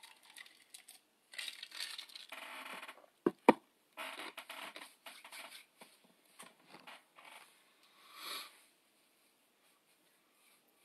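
Close handling noises: irregular rustling and scraping, with two sharp knocks about three and a half seconds in and a last brief rustle near the end.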